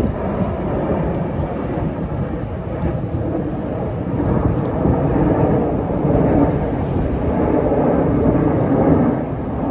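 Jet engine noise from a formation of KAI T-50B jets flying high overhead: a steady, distant rumble that grows a little louder about halfway through.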